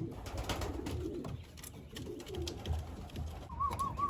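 Racing pigeons cooing in a loft, with scattered sharp clicks and taps. A short warbling high note comes near the end.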